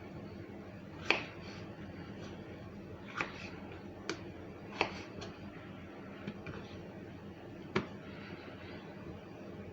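Kitchen knife cutting potatoes on a cutting board: sharp, irregularly spaced knocks of the blade striking the board, about seven of them.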